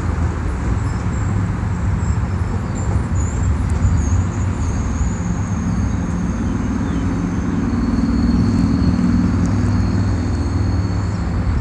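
MBTA commuter rail train's diesel engine running with a steady low drone that swells a little in the second half. A thin high whine sits above it.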